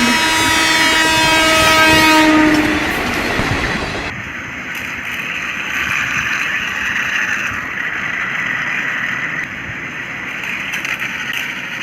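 Train horn blowing one long steady note for about three seconds, then the steady running rumble of a moving train.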